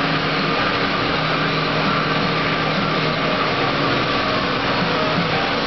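Steady drone of running machinery, an even noise with a faint low hum under it and no change in level.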